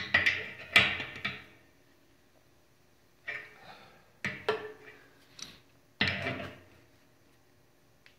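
Adjustable wrench clinking and scraping on a brass pipe fitting as it is fitted, turned and repositioned to tighten the fitting into the air compressor tank. The sound comes in about five short bursts of metal clicks.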